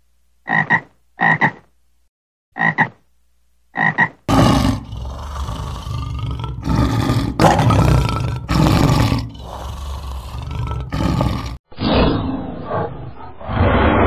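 Four short animal calls, each a quick double call, then a big cat roaring in a run of long, loud calls with short breaks. The sound changes to a different clip near the end.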